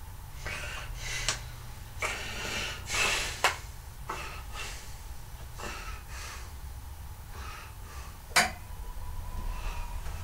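Handling of a plastic Blu-ray case: a run of short rustles and clicks, the sharpest click about eight seconds in, over a steady low room hum.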